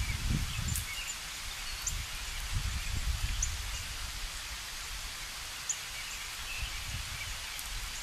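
Outdoor lawn ambience: a steady hiss with gusty low wind rumble on the microphone, heaviest in the first second or so. Short, faint, high chirps from a small bird come every second or so.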